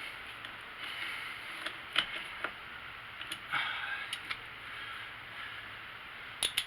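Hands working on car battery terminal clamps and covers: a few scattered sharp clicks and light knocks, with brief bits of rustling, two clicks close together near the end.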